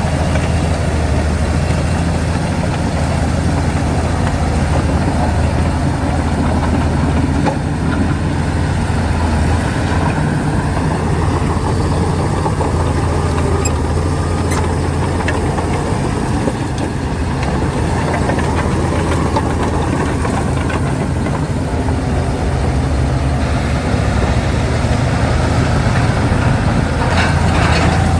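Shantui DH17C2 bulldozer's diesel engine running steadily with a deep, even drone, with some light metallic rattling near the end.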